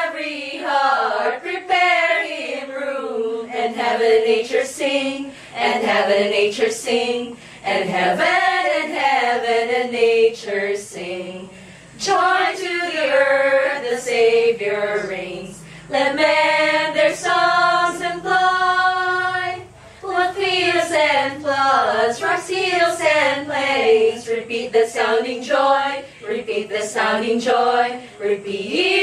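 A group of women singing a Christmas carol together, phrases of held notes with short breaks for breath between them.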